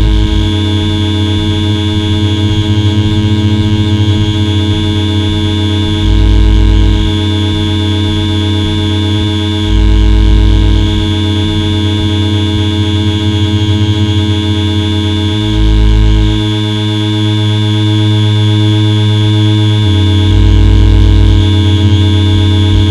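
Electronic noise drone: a dense stack of steady buzzing tones over a low pulse repeating about twice a second. A heavier low swell comes in every four to six seconds, and the pulse drops out for a few seconds past the middle.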